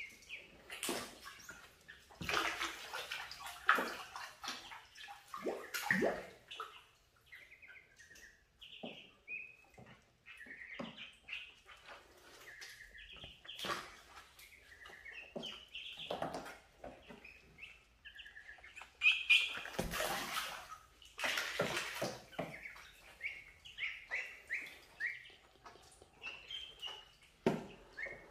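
Ducklings peeping with many short, high chirps, with splashing and sloshing of shallow water as they are put into a pool and paddle about. The loudest bursts of water noise come about two to six seconds in and again around twenty seconds in.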